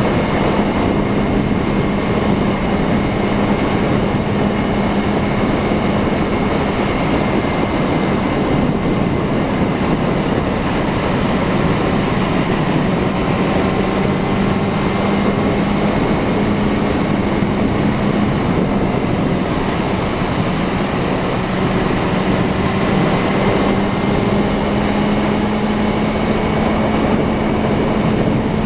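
Suzuki Bandit 650N inline-four engine running at a fairly steady pace while riding, its pitch sagging and rising only slightly, with wind rush over the action-camera microphone.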